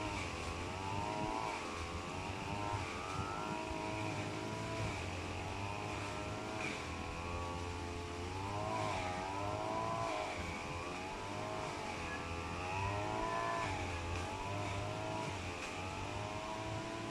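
Motor vehicle engines running and revving, their pitch rising and falling every second or two over a steady low hum.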